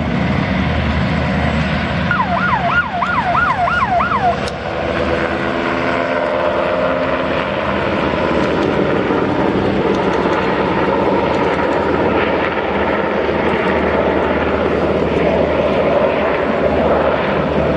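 Sikorsky S-70i Firehawk helicopter in flight, its rotor and twin turbine engines making a steady, loud noise. About two seconds in, a short run of about six repeated falling whistle-like tones sounds over it for a couple of seconds.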